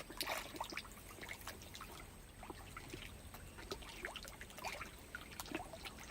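Faint water trickling with many small, irregular plops and drips at the surface of a pond.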